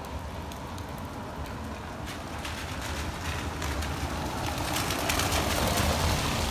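Rain falling on paving and puddles, a steady patter that grows louder over the last few seconds, over a low rumble.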